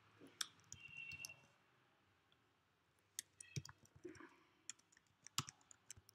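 Faint, scattered computer keyboard key clicks as code is typed, in short irregular runs.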